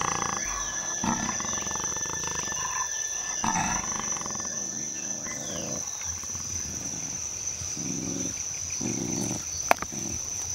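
Black jaguar growling in several short rough bursts, over a steady high-pitched whine, with one sharp click near the end.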